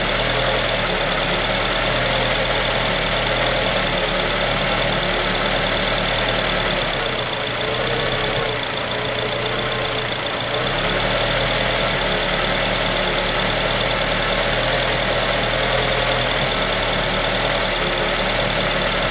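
2003 Acura RSX Type S's 2.0-litre four-cylinder engine idling roughly, a fault whose cause the owner doesn't know. The sound dips a little for about three seconds near the middle, then steadies again.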